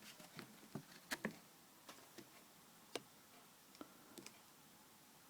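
Near silence with a few faint, scattered clicks and light handling taps, the clearest a little after one second and about three seconds in.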